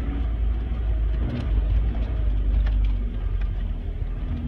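Low, steady rumble of a truck's engine and tyres on a dirt track, heard from inside the cab, with a few small knocks and rattles from bumps along the way.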